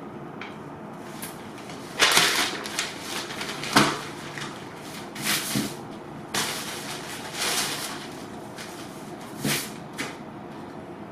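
Sheets of newspaper rustling and crinkling as they are handled and smoothed flat on a table, in several bursts, the first and loudest about two seconds in.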